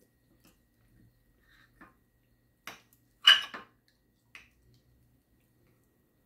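A dog barking a few short times about three seconds in, one bark much louder than the rest, with a single softer bark a second later.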